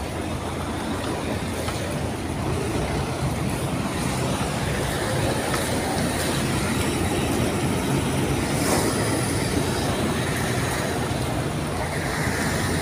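Diesel engine of a Mercedes-Benz heavy prime mover running steadily as it tows a loaded multi-axle low-loader trailer slowly past, a constant low rumble mixed with tyre and road noise.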